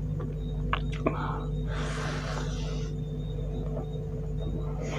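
Close-up eating sounds of rice eaten by hand: a few wet mouth clicks while chewing, and a breathy hiss lasting about a second, about two seconds in. A steady low hum sits under it all.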